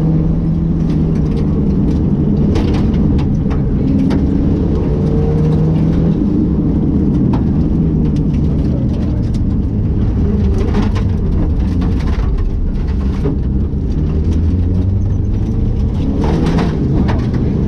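Rally car engine heard from inside the cabin, running hard at high revs, its pitch rising and falling with throttle and gear changes. Scattered sharp knocks and clatters come from the car hitting the stage's surface.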